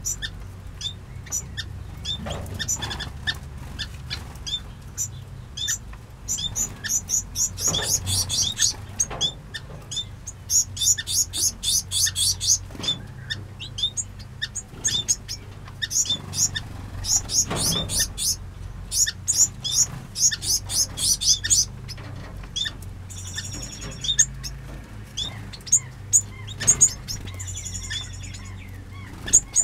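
Small aviary finches and waxbills chirping and twittering: a constant stream of short, high notes, broken by several flurries of fast repeated notes.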